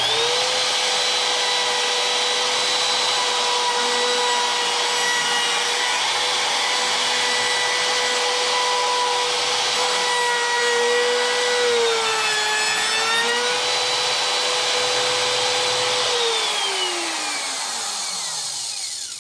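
Electric wood router starting up and running at a steady high whine while routing a switch pocket in a guitar body, its pitch sagging briefly about twelve seconds in. Near the end it is switched off and winds down, the whine falling over about three seconds.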